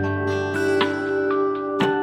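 Gentle background music led by a plucked acoustic guitar, with sustained notes under a steady pattern of picked notes.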